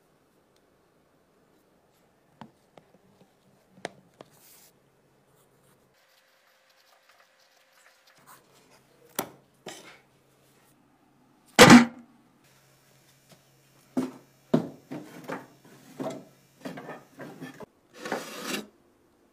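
Handling noises on a workbench: scattered light taps and clicks, one loud thump about two-thirds of the way in, then a quick run of knocks and scrapes near the end.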